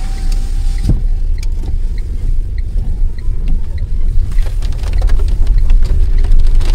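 Steady low rumble of a car's engine and tyres on a wet road, heard from inside the cabin.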